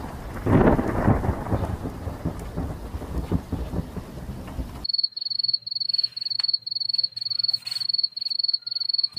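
A loud, even rushing noise with a deep rumble about half a second in, which cuts off abruptly about five seconds in. It is followed by a high, thin chirp repeating evenly about three or four times a second over a faint low hum.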